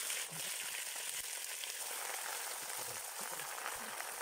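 Pork ribs frying in hot oil in a cauldron over a wood fire: a steady sizzling hiss.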